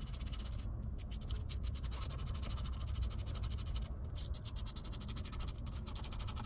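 Ratchet wrench clicking fast in repeated runs with short pauses between strokes, tightening the nuts on a pickup's driveshaft U-joint.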